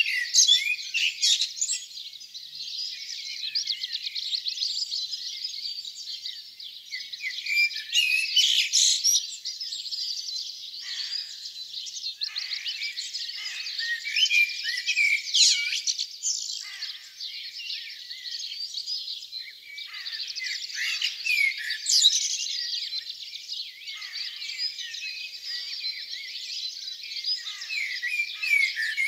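Spring dawn chorus: many small songbirds singing at once, a dense, unbroken mix of high chirps, whistles and trills.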